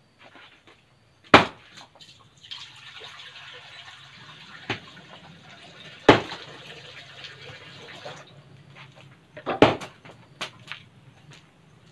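Water poured from a plastic jug into a wok, a steady splashing pour lasting about five and a half seconds. Several sharp knocks land before, during and after the pour.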